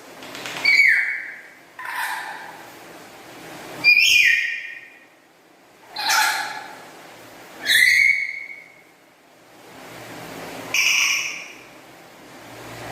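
Black-capped lory calling: six loud whistled calls about two seconds apart, several of them sweeping down in pitch.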